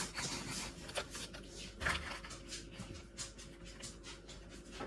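Faint, irregular clicks and light scraping of a small plastic spoon against a plastic tray as it works in the tray.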